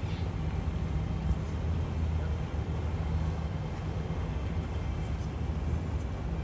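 A motor yacht's engines running with a steady low drone.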